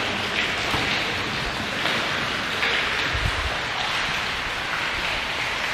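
Steady rushing, water-like noise inside a long rock tunnel, swelling slightly about once a second, with one low thud about three seconds in.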